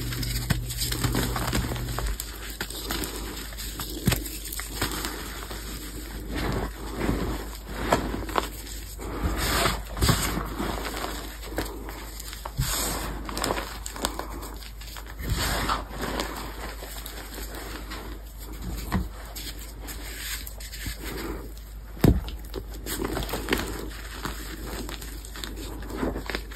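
Hands crushing pasted gym chalk blocks and squeezing soft, powdery chalk: irregular crunches and crumbling, with one sharp crack a few seconds before the end.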